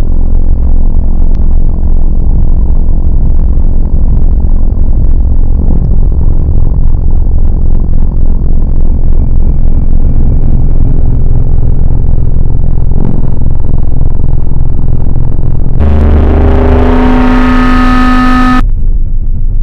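Harsh noise music: a loud, heavily distorted low rumbling drone that resembles a running engine. About 16 seconds in, it gives way to a bright wash of noise with several sustained tones, which cuts off suddenly a few seconds later.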